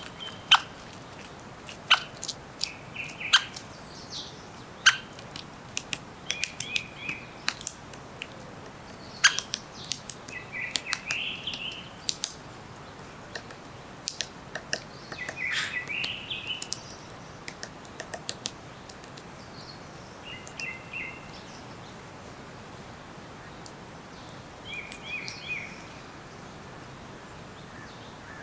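Wild forest birds chirping and calling at irregular intervals: sharp single chips mixed with short warbled phrases, over a steady faint background hiss.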